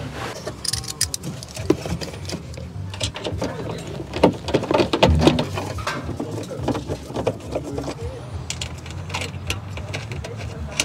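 Irregular clicks and knocks of hand work on plastic and metal parts: a vehicle snorkel pipe being handled and fitted, with its fixings started by hand.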